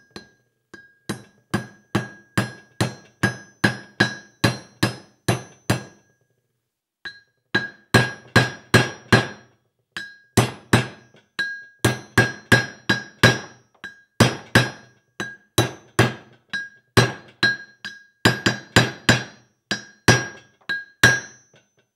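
Copper-faced hammer tapping a new bearing race into a chrome swivel ball, about two blows a second, each with a short metallic ring. The strikes pause briefly a quarter of the way through, then carry on.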